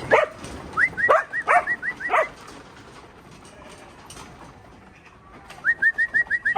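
Sheepdog barking in quick runs of short, high yaps, first in the opening two seconds and again near the end, with a quieter stretch between.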